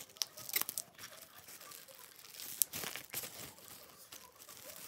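A thin clear plastic bag with a paper label taped to it, crinkling and rustling softly as it is handled. A few short light clicks come through the rustle.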